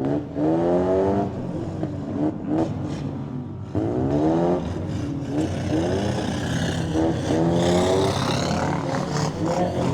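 Demolition derby car engines running, revving in rising bursts about half a second and about four seconds in, over a steady engine drone.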